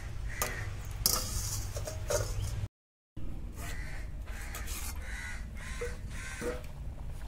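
Crows cawing repeatedly over a low steady rumble, with two sharp metal clinks in the first couple of seconds from a steel plate being set as a lid on the pot. The sound drops out for about half a second in the middle.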